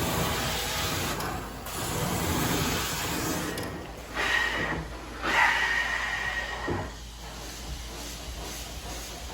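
Carpet-cleaning extraction wand hissing as it sprays and sucks water back out of the carpet, in strokes with short breaks between them. A high steady whistle from the suction rises in the middle.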